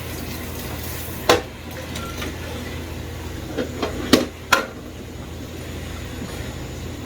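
Kitchen clatter: a few sharp knocks of utensils against dishes, one about a second in and two close together past four seconds, over a low steady hum.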